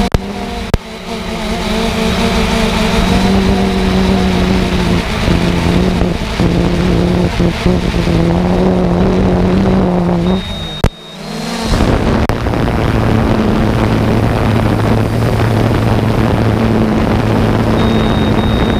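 A motor running steadily at a constant pitch over a broad rushing noise. The sound drops out briefly about eleven seconds in and comes back with the hum at a lower pitch.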